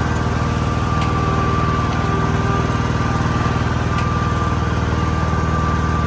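Ride-on lawn mower's engine running at a steady speed, with a thin steady whine above the engine note.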